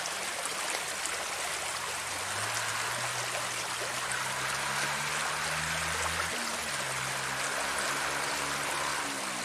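Water flowing and trickling steadily in a small ditch. Underneath, a low drone rises slowly in pitch through the middle, breaks off about six seconds in, then comes back fainter.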